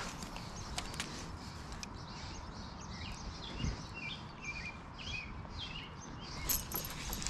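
Several short bird chirps in the background over a faint, low steady rumble, with a brief bright rattling burst near the end.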